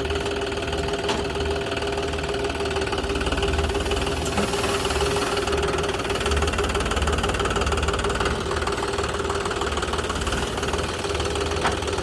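Heavy diesel engine running steadily, a low throb with a steady whine above it.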